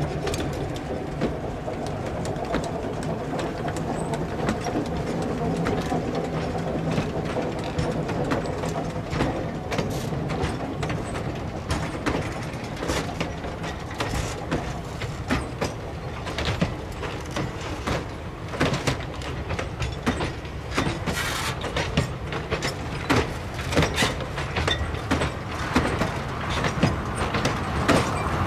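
Loaded iron ore hopper wagons on a 762 mm narrow gauge railway rolling slowly past, with a steady low rumble and their steel wheels clicking and clanking over the rail joints. The clicks grow more frequent and louder in the second half.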